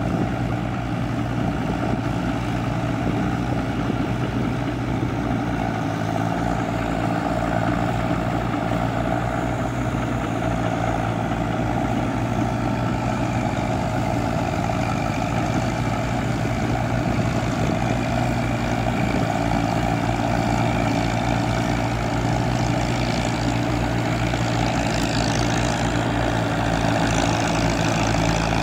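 Diesel engine of a track-converted farm tractor running steadily as it works through a flooded rice paddy.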